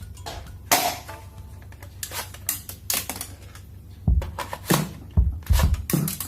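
Plastic clicks and knocks from toy guns being handled, with a run of heavier, deeper knocks starting about two-thirds of the way in, over background music.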